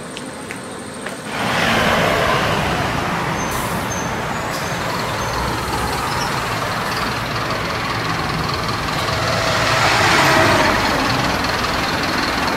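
City bus engine and street traffic at a bus stop, a dense steady noise with a low rumble that starts suddenly about a second in and swells briefly near the end as the bus runs close by.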